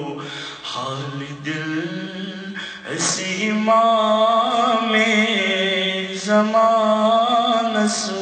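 A young man's voice chanting an Islamic devotional poem unaccompanied into a microphone, holding long sung notes, and growing louder about halfway through.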